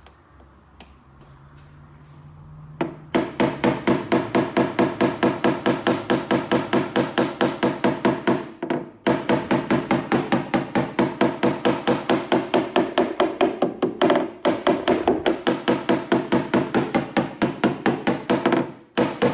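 A hammer tapping rapidly and evenly on sheet-metal bodywork, about five blows a second. The tapping runs in three long bursts with short pauses between them.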